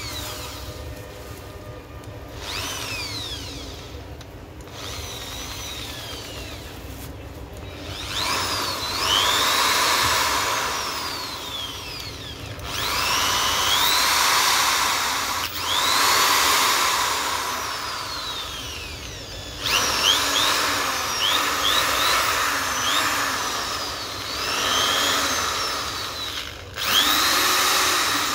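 Autopower corded electric hand drill running free with an empty chuck. Its motor whines up and winds down again and again as the variable-speed trigger is squeezed and eased, reaching a different speed on each run.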